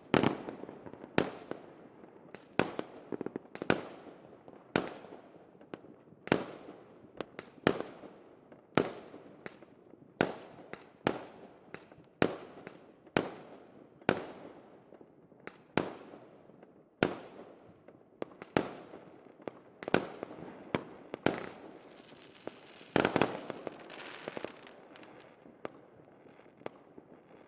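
Fireworks going off: a sharp bang about once a second, each followed by a fading crackle. Near the end a denser burst of crackling rises, then dies away.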